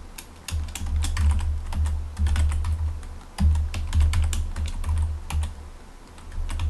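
Typing on a computer keyboard: rapid, uneven keystrokes, several a second, with a dull low thud under the key clicks.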